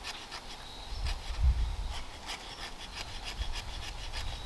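Small ferrocerium rod scraped over and over with a steel edge in a run of quick, irregular rasping strokes, several a second, in repeated tries to throw sparks. A dull low thump about a second and a half in.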